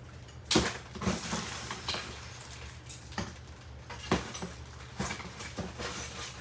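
Junk being rummaged through: irregular knocks and clatters of hard plastic and metal parts being handled, with the loudest knock about half a second in. A steady low hum runs underneath.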